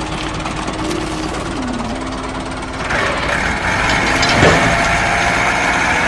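Tractor diesel engine sound running with a knocking idle. It grows louder and brighter about three seconds in, while the trailer tips its load of bricks.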